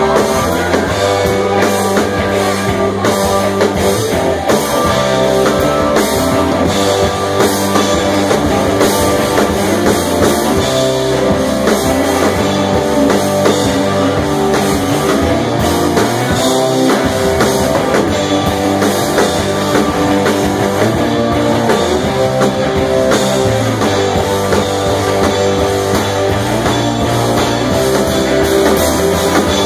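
Live blues-rock band playing loudly: electric guitars, bass and a drum kit keeping a steady beat.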